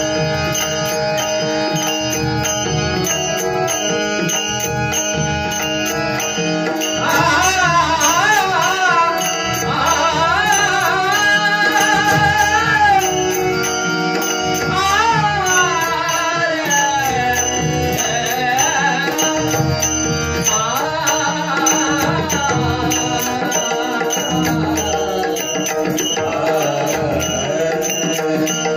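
Devotional bhajan music: harmonium holding steady notes over hand-drum strokes. About seven seconds in, a male voice joins with ornate, gliding vocal runs.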